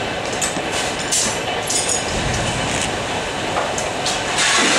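Building fire at close range: a steady rushing noise with scattered sharp cracks and pops.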